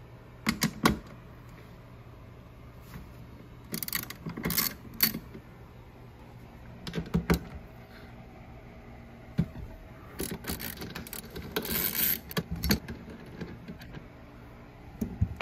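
Ratchet with a 12 mm socket working a grab-rail bolt loose: short bursts of clicking and metal clinks, a few at a time, with the busiest run about ten to thirteen seconds in.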